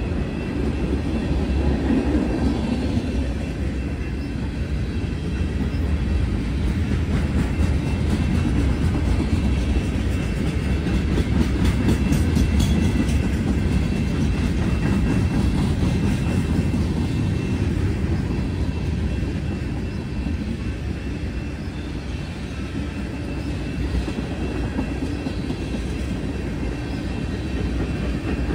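Freight cars of a long CSX manifest freight train rolling past, a steady rumble of steel wheels on rail with clicks as the wheels cross rail joints.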